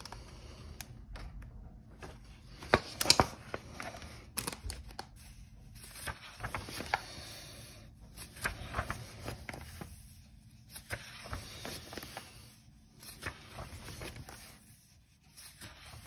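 Paper pages of a colouring book being turned one after another: a rustle and swish of paper about every one to two seconds, with a sharper crackle about three seconds in.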